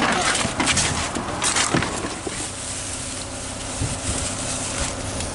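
Metal shopping cart rattling and clanking with plastic grocery bags rustling as groceries are unloaded, sharpest in the first couple of seconds, over a steady low hum.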